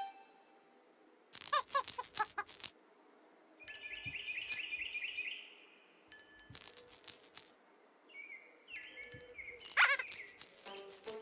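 Tinkling background music: four short bursts of chimes and rattle-like shakes, about two and a half seconds apart, two of them carrying a wavering high tone.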